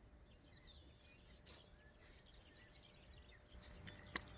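Near silence: faint outdoor ambience with a few quiet bird chirps, and a sharp click near the end.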